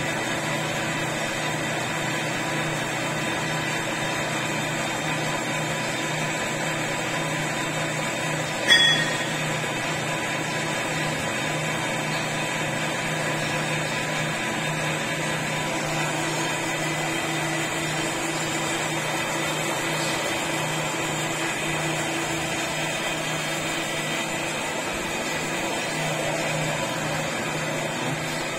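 Metalworking lathe running: a steady motor and gearbox hum with a low drone that pulses evenly. A single sharp metallic clank about nine seconds in.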